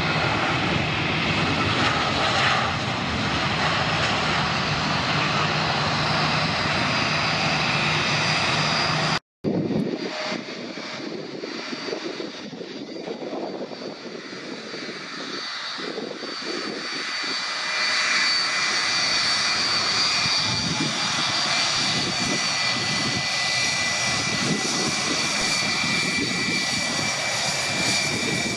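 Jet airliner engines running with a steady rush. About nine seconds in the sound cuts out for a moment. It comes back quieter and builds again, with a steady high engine whine over the rush.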